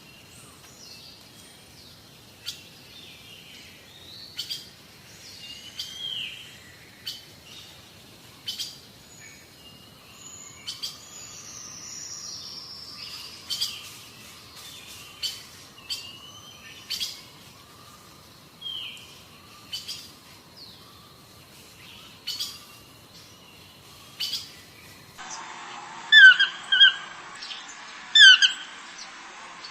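Marmot alarm calls: short, sharp, high whistles, one every second or two, over a faint hiss. About 25 seconds in, a different recording of deer calls begins, louder high calls in quick pairs repeated every couple of seconds.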